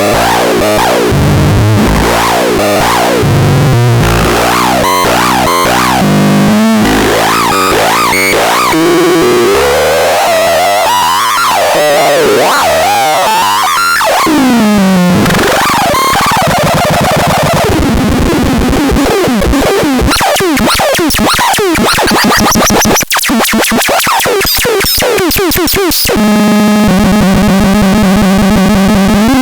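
The DOTENNOX electronic noise synthesizer playing harsh, chaotic tones. Pitches jump and swoop down and up through the first half, break into rapid stuttering clicks from about 20 s, and settle into a steady low buzzing tone near the end.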